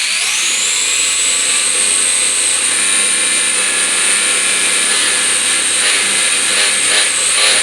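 Brushless motor and drivetrain of an Arrma Limitless RC car spun up to a high, steady whine, its pitch climbing at first and levelling off about a second in, wavering slightly near the end. This whine is the strange noise the owner is asking about.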